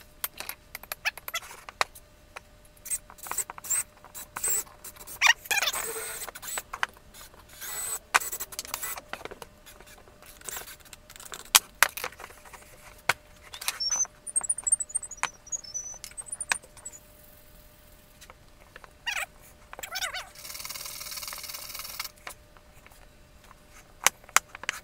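Wooden model parts being handled and fitted together on a workbench: many quick clicks, taps and knocks of cut plywood pieces. There is a short run of high squeaky chirps midway and about two seconds of steady hiss near the end.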